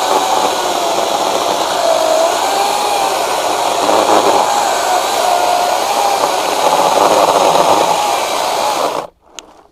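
Ryobi 40V HP brushless 20-inch cordless chainsaw cutting through a thick oak log under load, a steady electric-motor and chain whine that rises and falls slightly in pitch. About nine seconds in it stops suddenly, followed by a single faint click.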